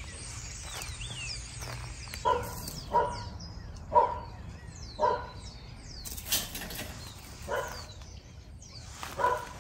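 A dog barking repeatedly, about one bark a second at an uneven pace, starting about two seconds in.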